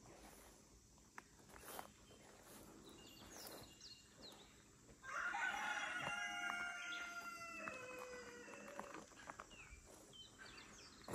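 A rooster crowing once, a long call starting about five seconds in and dropping in pitch at the end. Small birds chirp briefly before and after it.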